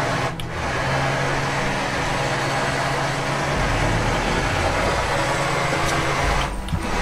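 Boat engine idling steadily under a haze of wind noise. A deeper low rumble comes in about halfway through and drops out near the end.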